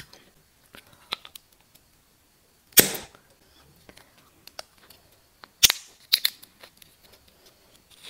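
Thin plastic wrapping crackling and snapping sharply as it is peeled off a small peach-shaped gummy candy, with the loudest snap about three seconds in and a quick cluster of snaps around six seconds.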